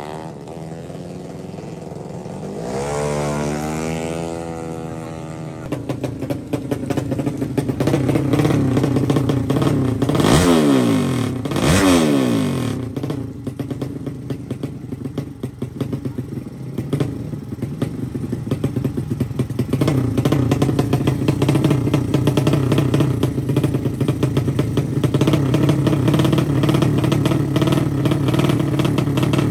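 Drag-racing motorcycle engines running loud at high revs, their pitch dipping sharply and climbing back twice about ten and twelve seconds in, then held at a steady, rapid, rattly firing.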